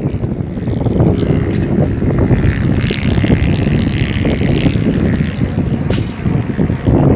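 Azul ATR 72-600 turboprop climbing out after takeoff, its twin PW127M engines and propellers droning, with a higher whine that swells in the middle and fades. Heavy wind buffeting on the microphone runs underneath.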